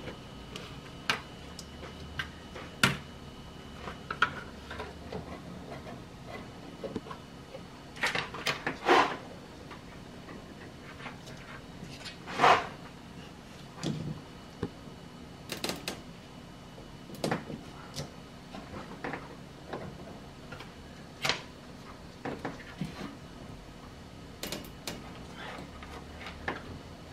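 Scattered clicks, knocks and rustles of hands working behind a car's front bumper, cinching down the ties that hold a toll transponder. The sounds are irregular, with a few louder knocks spread through.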